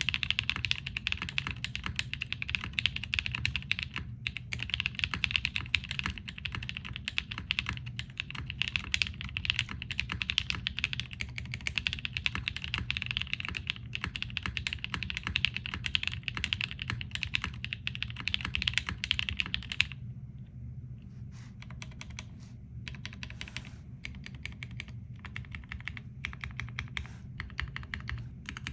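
Typing on a mechanical keyboard with broken-in Kailh Cream linear switches, an aluminium plate and ABS keycaps: a fast, continuous patter of keystrokes. About two-thirds of the way through, the typing turns quieter and comes in short spurts with brief pauses. A steady low hum runs beneath.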